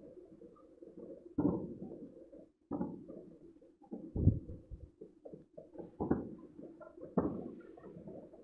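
Distant New Year's fireworks and firecrackers going off across the city: a series of muffled bangs, each trailing off, the deepest boom about four seconds in.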